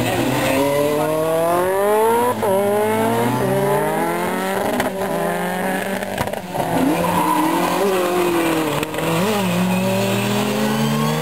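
Rally cars' engines revving hard under acceleration, more than one car at once. The engine note climbs, falls back at an upshift about two seconds in, and climbs again.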